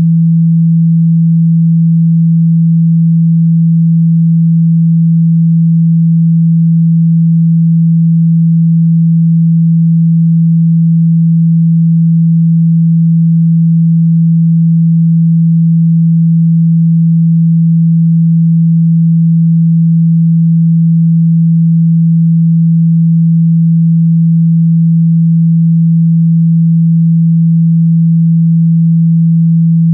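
A single steady, low pure tone, loud and unbroken: a speaker-cleaning tone, played through a phone speaker so that the cone vibrates water and dust out of it.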